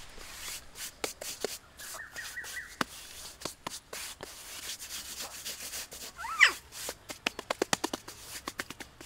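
A bare hand rubbing and smoothing wet mud over the floor of a pond basin, a string of short scraping strokes with a quick run of clicks near the end. Puppies whine over it: a short high note about two seconds in and a louder rising whine about six seconds in, the loudest sound.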